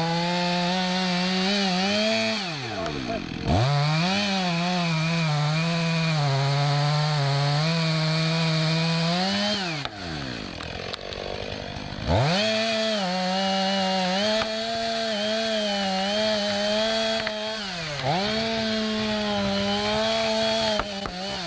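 Chainsaw cutting wood in four full-throttle runs. It drops briefly toward idle between runs, with the longest drop about ten seconds in, and its pitch sags under load in the cut.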